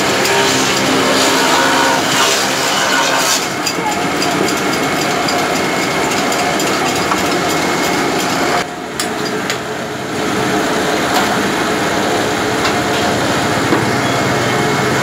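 A machine motor running steadily under busy market noise, briefly quieter about nine seconds in.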